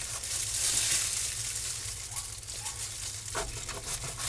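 Crinkling of thin plastic gloves and soft knife scraping as raw chicken breast meat is cut off the bone on a cutting board, over a steady hiss.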